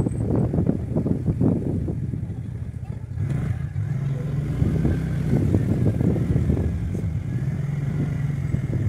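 Wind buffeting a phone microphone on a moving scooter, over the scooter's engine running. About three seconds in the sound turns to a steadier engine hum with a faint wavering whine.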